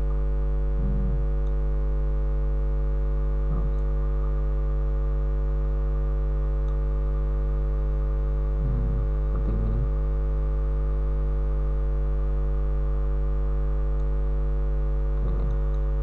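Steady electrical mains hum in the recording, with a stack of even buzzing overtones. A few short, faint low sounds break in about a second in, near the middle and near the end.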